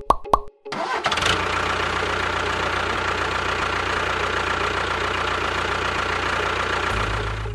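An engine starts running about a second in and runs steadily at an even speed, with a brief dip near the end.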